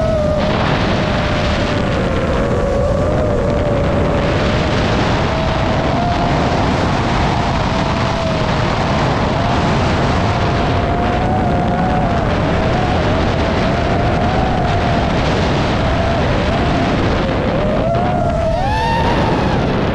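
Brushless motors and propellers of a 5-inch FPV quadcopter whining at a pitch that wavers with the throttle, under heavy wind buffeting on the onboard camera's microphone. Near the end the whine swoops up and then back down in pitch.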